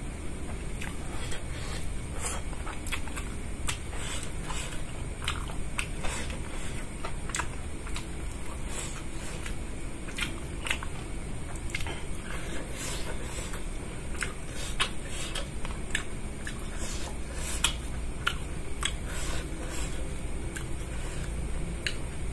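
Close-up chewing and mouth sounds of a person eating rice by hand: irregular wet smacks and clicks as he chews, over a steady low background hum.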